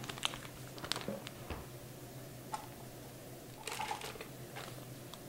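Faint rustling and a few light ticks as a stick of butter's paper wrapper is peeled back by hand over a steel mixing bowl, over a low steady hum.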